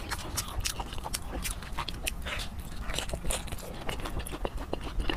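Close-miked eating sounds: rapid, irregular wet clicks and smacks from sticky, sauce-coated braised meat being peeled apart and eaten.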